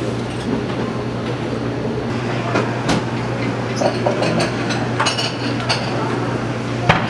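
Busy restaurant room noise: indistinct voices and a steady low hum, with a few sharp clinks of dishes, around three seconds in, five seconds in and near the end.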